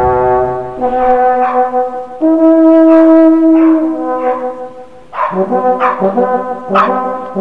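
Brass fanfare music for a channel logo: held chords that change every second or so, with sweeping swishes over them.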